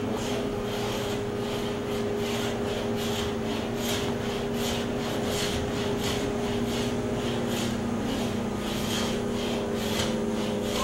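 Homemade scratch stock scraped back and forth along a wooden window muntin, cutting the molding profile in repeated rasping strokes about twice a second. A steady low hum runs underneath.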